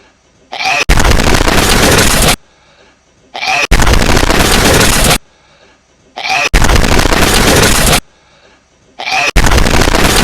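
Hedgehog sneezing over and over, each time a short faint snuffle and then a loud, harsh blast about a second and a half long. It comes round about every three seconds, four times.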